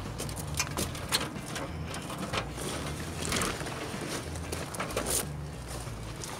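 Irregular clicks, scrapes and rustling of a fabric sun-blocker shade panel being worked along the metal track of an RV awning.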